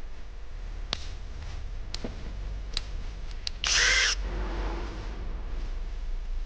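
Sharp clicks of tools being handled in a repair shop, and one loud half-second burst of noise about three and a half seconds in, heard over a steady low hum.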